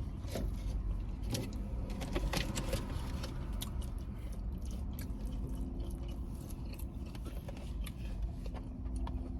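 Eating sounds, chewing with scattered small clicks and taps, over a steady low car-cabin rumble.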